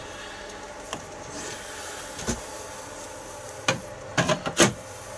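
Metal clinks and knocks from fitting a knurling tool holder onto a lathe's quick-change toolpost and locking it. There is a single clink about a second in and another just past two seconds, then a quick run of sharper knocks near the end, over a steady background hum.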